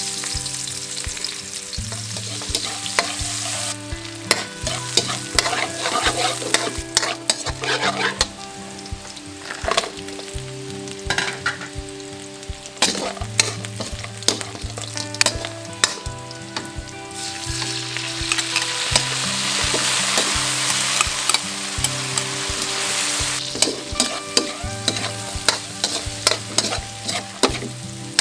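Onion, garlic and fried pork belly chunks sizzling in oil in a metal wok, stirred with a metal spatula that scrapes and clicks against the pan. The sizzle swells louder for a few seconds past the middle.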